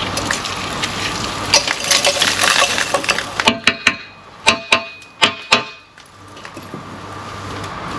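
Rough scraping and crunching of rusted steel angle iron and rubble being shifted against brickwork. About three and a half seconds in, this gives way to a quick run of about eight hammer blows on steel, each one ringing.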